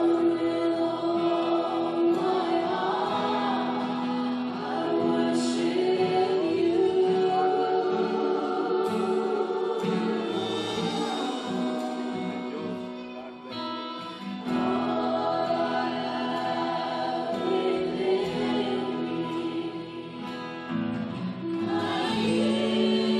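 A choir singing a hymn to instrumental accompaniment, in long held phrases with a brief break just past halfway through.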